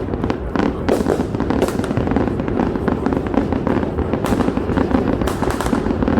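Aerial fireworks display going off in quick succession: a dense, continuous run of booms and crackles, many bursts overlapping.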